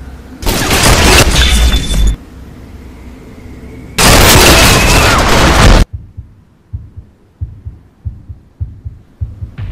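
War-film battle sound effects: two loud blasts of explosion or gunfire noise, each about a second and a half long. They are followed by an irregular run of faint, low thuds.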